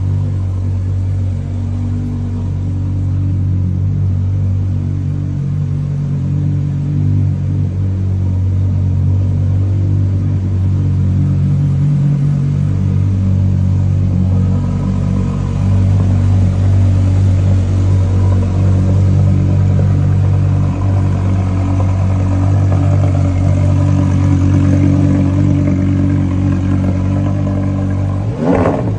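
Porsche Carrera GT's V10 engine idling steadily just after a cold start, a little louder from about halfway through. A brief sharp sound near the end.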